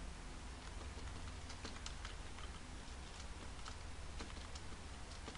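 Computer keyboard being typed on: irregular, scattered key clicks over a low steady hum.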